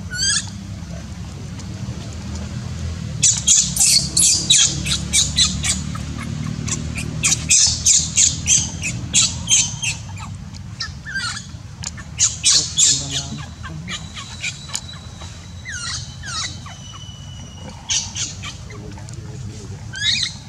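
Infant macaque crying: rapid runs of high-pitched squeals in several bouts, with short pauses between them.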